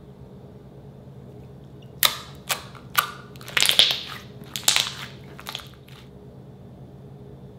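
White slime squeezed and folded between hands, giving a run of sharp wet pops and crackles as air pockets burst. The pops start about two seconds in and die away about two seconds before the end.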